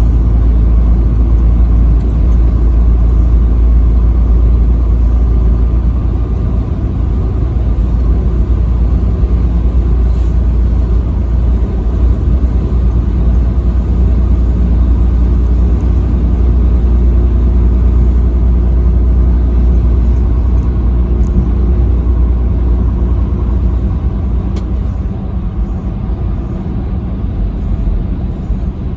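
Steady deep rumble of a vehicle driving on the highway, with engine hum and road noise, easing a little over the last few seconds.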